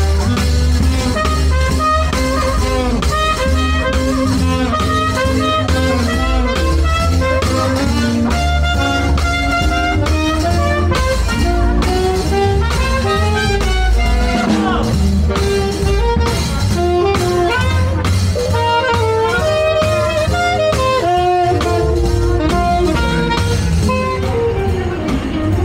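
Jazz music with saxophone, brass and drums.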